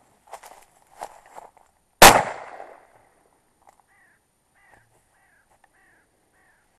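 Crows cawing, then a single loud shotgun shot about two seconds in, followed by a run of short bird calls, each falling in pitch.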